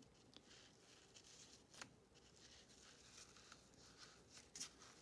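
Near silence, with faint rustling and two light ticks as a plastic weaving needle is worked under and over the yarn warp strings of a cardboard loom.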